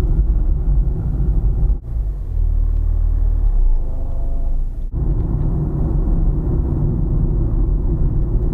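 Car driving: a steady low rumble of engine and road noise, broken by two sudden short drop-outs, about two and five seconds in.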